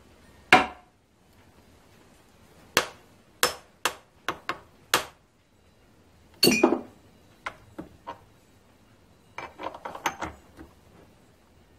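Sharp metal knocks and clinks from a mill's machine vise worked by hand, with aluminium blocks being set down on parallels in its jaws. One loud knock about half a second in, then a string of single knocks, a heavier rattling knock midway, and a flurry of lighter clinks near the end.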